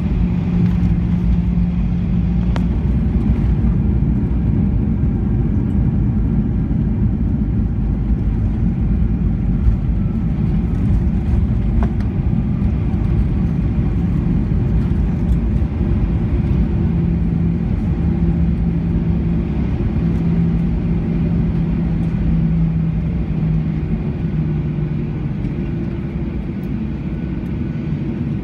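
Cabin noise of a Boeing 737-900ER heard from a seat over the wing as it taxis: a steady low rumble from the idling CFM56 engines and the rolling landing gear. A low hum comes and goes, and there are a few light knocks.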